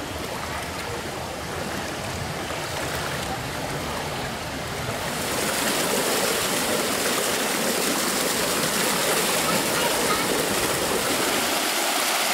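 Water rushing and splashing along a shallow stone fountain channel, getting louder and brighter about five seconds in.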